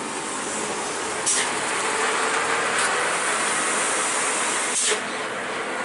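Heavy Fuso cargo truck passing at close range: a steady rush of engine and tyre noise, broken by three short sharp clicks, the loudest shortly before the end.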